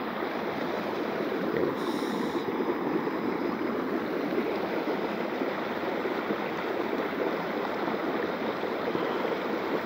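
A small stream running over flat rock, a steady rush of water.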